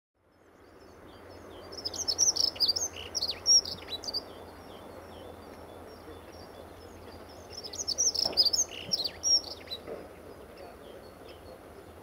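Dunnock singing: two rapid, high warbling song phrases of about two seconds each, a few seconds apart, over faint steady background noise.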